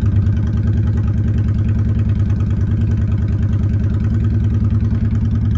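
A 1998 Honda Shadow 750's water-cooled V-twin engine idling steadily.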